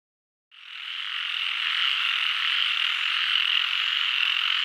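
Frog chorus sound effect: many frogs croaking together in a dense, steady din that fades up about half a second in and then holds.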